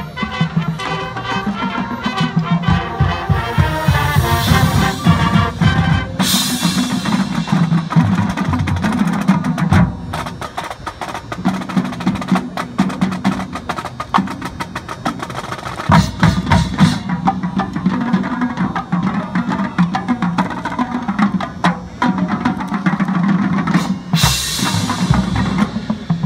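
High school marching percussion playing a field show: marimbas and other keyboard mallets of the front ensemble over rapid snare drum strokes and bass drums. Bright crashes come about six seconds in and again near the end.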